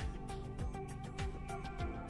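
Background music with a steady beat: a deep drum about twice a second under quick ticking percussion and held tones.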